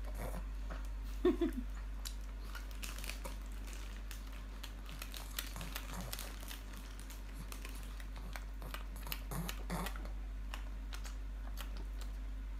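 Small Shih Tzu chewing a piece of soft bread: scattered wet mouth clicks and smacks. A brief low vocal sound comes about a second in and again near the end.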